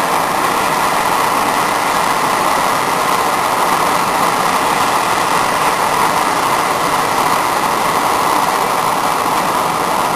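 Bernzomatic self-lighting hand torch burning with a loud, steady rushing hiss as its flame heats a crimp terminal for soldering.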